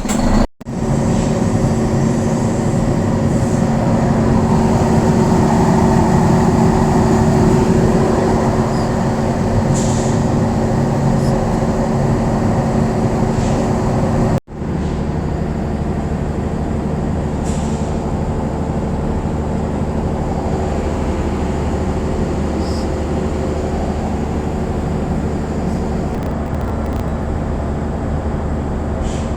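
Generator in its enclosed canopy running steadily at no load: a loud, even hum with a constant low tone. The sound breaks off for an instant about half a second in and again about halfway through.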